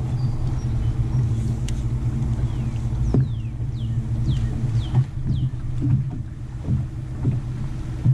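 Steady low hum and rumble from a bass boat's bow-mounted electric trolling motor. A bird gives a run of short descending whistled notes about three to five seconds in.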